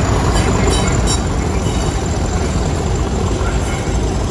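A train at the platform with its engine running, a steady heavy low rumble.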